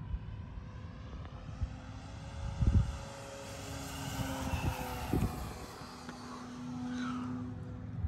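Seagull Models Sport Cruiser radio-controlled airplane flying by, its propeller drone sinking slightly in pitch as it passes. Two low thumps of wind on the microphone come about a third and two-thirds of the way in.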